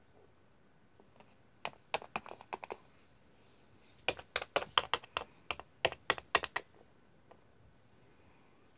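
Sharp clicks and taps in two quick runs, like typing: a short run about two seconds in, then a longer, louder run from about four to six and a half seconds.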